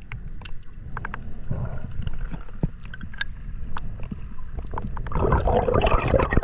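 Underwater sound heard through a dive camera's housing: a muffled low rumble with scattered sharp clicks, then from about five seconds in a louder churning of water and bubbles as the camera comes up toward the surface beside the divers.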